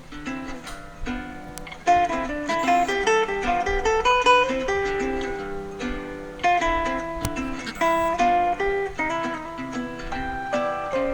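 A Samsung Galaxy S7 stock ringtone playing: a melody of quick short notes in a phrase that repeats, louder from about two seconds in.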